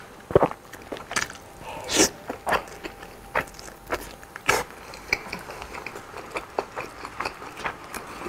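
Close-miked biting and chewing of a crispy fried rice-stuffed chicken wing: irregular sharp crunches and wet mouth clicks, with two louder bites about two seconds in and midway.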